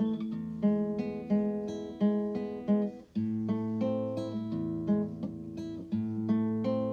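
Background music of acoustic guitar: plucked notes at a steady pace, with a brief pause about three seconds in.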